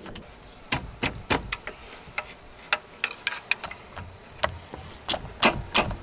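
Irregular metal clanks and knocks of a pry bar levering a stuck alternator off its mounts, the loudest near the end. The alternator is held by the steel mounting sleeves at its bolt holes, which tighten into it and make it hard to get out.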